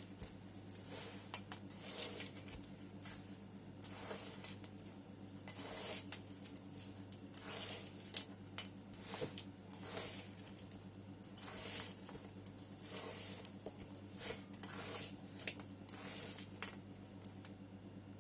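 Potting soil being scooped and handled: short gritty rustles, one every second or two, over a faint steady low hum.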